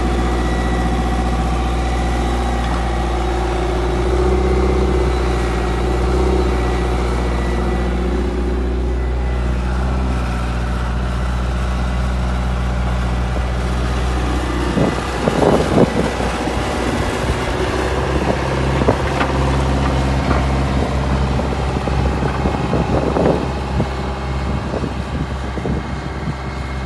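Diesel engine of a wheeled excavator running steadily at a low, even speed. From about halfway through, irregular knocks and rumbling gusts sound over the engine.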